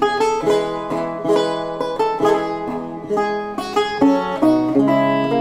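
Bray lute (a Renaissance lute fitted with bray pins, the 'brelute') played solo: a quick run of plucked notes with a bright, buzzing, harp-like tone, with lower bass notes joining about halfway through.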